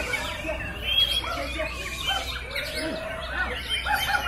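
Several caged white-rumped shamas (murai batu) singing at once, a dense tangle of overlapping whistles and chirps.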